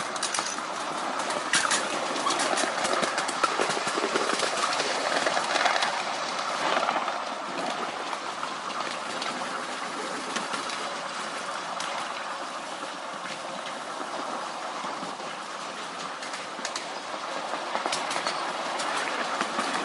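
Miniature railway train running along the track: a steady rumble of small steel wheels on the rails, with sharp clicks now and then from rail joints. It is louder for the first several seconds, then settles to a quieter run.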